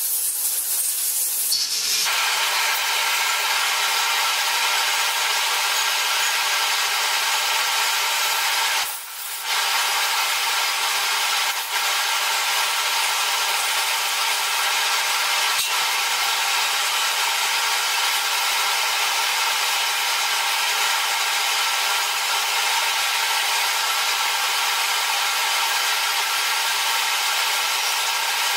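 Spray-paint booth running with a steady rushing from its exhaust fan and the hiss of an aerosol spray can. The noise dips briefly about nine seconds in.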